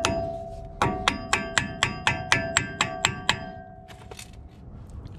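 Quick, even hammer taps on a metal wheel-hub dust cap on a Toyota pickup's front hub, driving it into place. There are about a dozen taps at roughly four a second, each with a short metallic ring, and they stop about three and a half seconds in.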